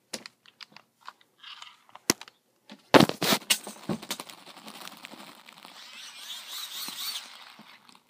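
Handling noise from the recording phone: scattered clicks and crunches, loud knocks about three seconds in, then a few seconds of close scraping and rustling.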